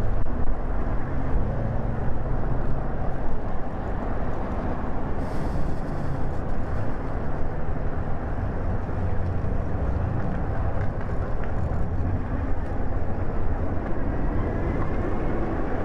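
Wind buffeting the microphone of a rider on an electric bike, a steady low rumbling rush.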